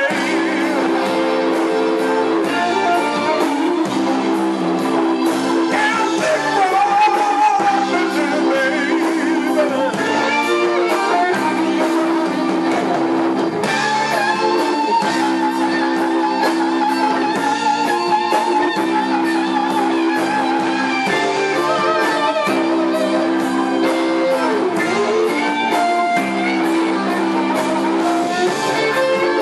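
Live electric blues band playing: electric guitar with bent notes over a backing riff that repeats about every two seconds, and a man singing at times.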